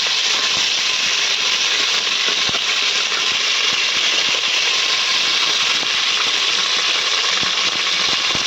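Fennel seeds and curry leaves sizzling in hot oil: a steady hiss with scattered small pops and crackles.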